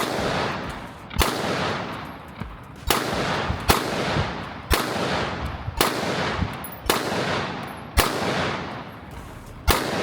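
A firearm fired nine times in quick succession, about one shot a second at an uneven pace, each shot ringing out and trailing off before the next.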